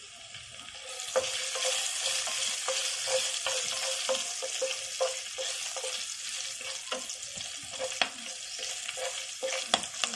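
Hot oil sizzling as halved green chillies fry with crushed garlic and cumin, stirred with a wooden spatula that knocks and scrapes against the non-stick pan. The sizzle swells about a second in.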